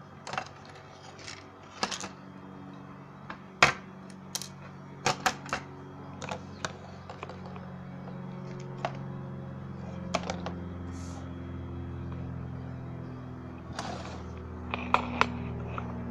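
Scattered sharp clicks over a steady low electrical hum from a faulty ceiling fan unit whose blades won't spin; the hum grows louder about halfway through.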